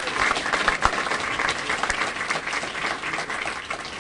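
Audience applauding: many people clapping together, thinning out slightly toward the end.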